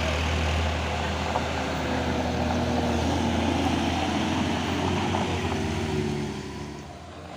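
Heavy truck's diesel engine running steadily under load on a steep climb, a deep low drone with engine noise above it, fading away about six seconds in as the truck moves off.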